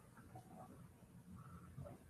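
Near silence: faint room tone with two faint, short, squeak-like sounds.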